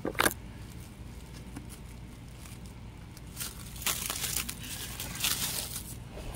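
A single tap about a quarter second in, then crumpled aluminium foil crinkling in short bouts through the second half.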